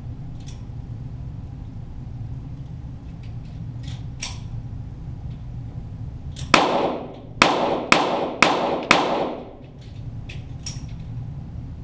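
A quick string of five .22 target-pistol shots from a Walther GSP, about half a second apart, starting a little past halfway, each with a short echo. A few faint ticks come before them over a steady low hum.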